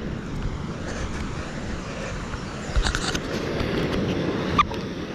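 Steady rush of wind and ocean surf breaking on lava rocks, with a low rumble. A couple of sharp clicks come near the middle and a louder one near the end.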